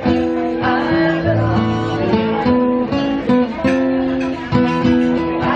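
Acoustic guitar strummed and picked live, playing the accompaniment to a song.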